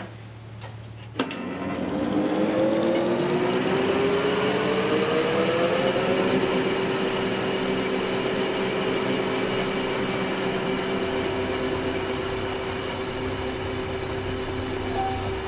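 Wool-spinning machine starting up: a click about a second in, then its motor and drive whine rising in pitch for several seconds as it comes up to speed, settling into a steady mechanical whirr.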